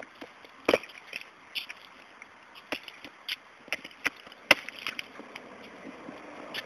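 A toddler's rubber rain boots stomping and splashing in a shallow puddle on asphalt: a string of about ten sharp, irregular splats and steps, the loudest about four and a half seconds in.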